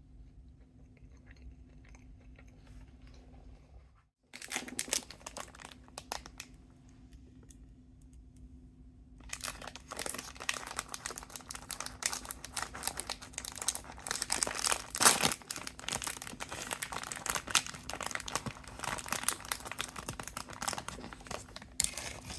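Plastic snack packaging crinkling as it is handled: a short burst of crinkles about four seconds in, then dense, continuous crinkling from about nine seconds on.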